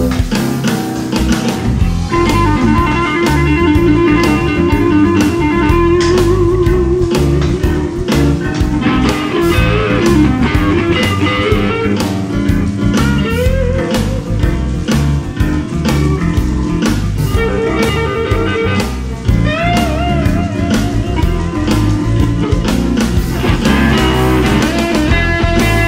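Electric guitar playing a lead melody with bent and wavering notes, over a steady backing of drums and bass.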